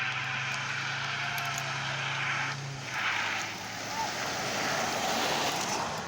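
A car running with a steady low drone that stops about three seconds in, over a steady rushing noise.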